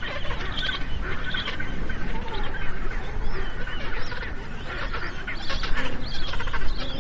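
Many Magellanic penguins calling at once, a dense, overlapping chorus of short calls from a colony, over a steady low rumble.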